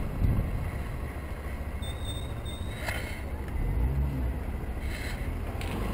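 125cc motorbike running slowly in city traffic: a steady low engine and road rumble. There is a faint high whine for about a second near two seconds in, a swell in the low hum around four seconds, and two short clicks.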